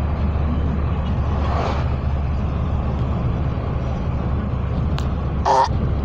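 Steady low rumble of a moving car's cabin, with a short, loud burp from a passenger about five and a half seconds in.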